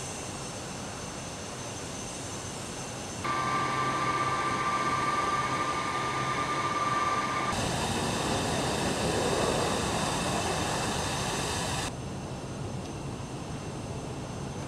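Jet airliner engines running steadily, in several shots cut together, so the sound changes abruptly about three, seven and a half and twelve seconds in. The loudest stretch in the middle carries a high steady whine over the engine noise.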